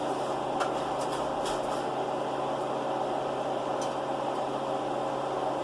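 Steady mechanical hum of a running household appliance, with a few faint clicks.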